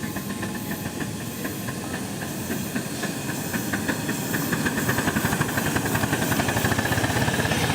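Miniature steam locomotive working, with a rapid run of exhaust beats over steam hiss, getting louder towards the end.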